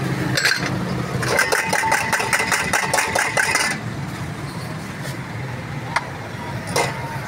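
Steady low hum of an idling motor vehicle engine. About a second in, a fast run of sharp metallic clinks from metal on metal lasts two to three seconds, with a few single clicks later.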